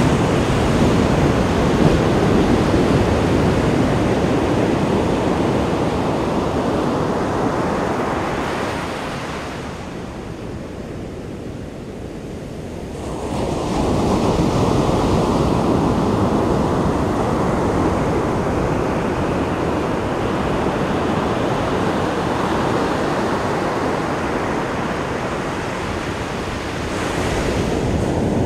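Ocean surf breaking and washing up a beach: a continuous rush of water that ebbs to a lull about ten seconds in, then surges back as the next wave breaks, with another dip and swell near the end.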